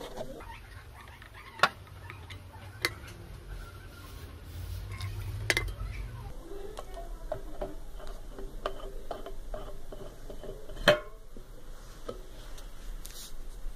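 Scattered light clicks and taps, with a few sharper knocks, over a low hum that stops about halfway through.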